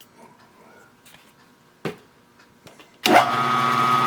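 A single knock about two seconds in. About a second later an electric machine motor switches on and runs steadily with a whine.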